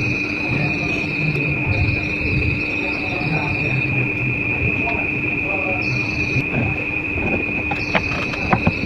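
Insects trilling: one steady high trill throughout and a higher one coming and going in stretches of a second or two, over a low murmur, with a few sharp clicks near the end.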